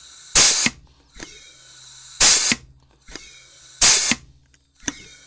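Chicago Pneumatic CP351 pneumatic rivet squeezer cycling three times, crunching plastic doll parts: each stroke gives a light click, then a loud, short hiss of air, about every second and a half.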